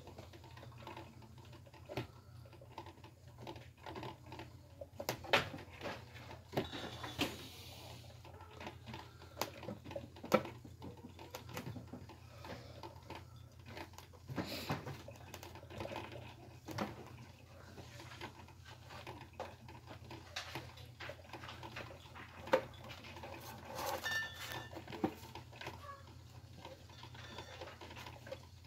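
A cat scratching, pawing and rustling at a cardboard carton as it climbs into it: irregular small scratches and taps, with a few sharper knocks.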